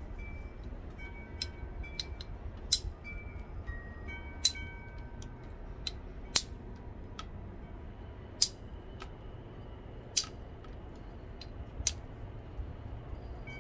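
Flat copper bar striking the edge of a stone biface: about six sharp clicking blows roughly two seconds apart, with lighter taps between. This is percussion thinning, driving off thinning flakes.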